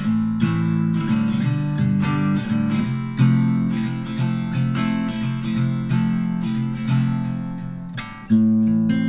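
Background music played on acoustic guitar, with picked and strummed chords in a steady rhythm; it dips briefly and a new phrase starts about eight seconds in.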